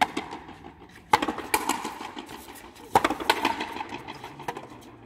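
Frontenis rally: sharp smacks of the rubber ball against tennis rackets and the frontón wall, five or six hits about a second apart, each ringing briefly off the high walls.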